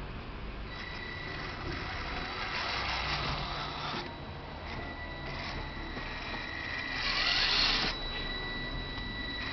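Losi Mini Rock Crawler's small electric motor and gearbox whirring in spurts, over a steady high-pitched whine. The whirring is loudest about three-quarters of the way through, as the crawler works its way up a steep climb.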